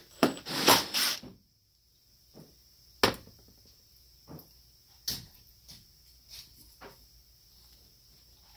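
Cordless driver running in short bursts for about the first second, backing screws out of a Mikuni carburetor. A sharp clack about three seconds in as the tool is set down on the bench, then light clicks and taps of small carburetor parts being handled.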